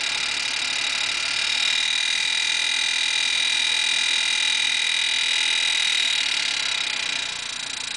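Best PK22 range hood fan running at high speed, a loud steady high-pitched whine over rushing air: the abnormal noise the unit makes once the fan speed is turned up. It eases off a little near the end.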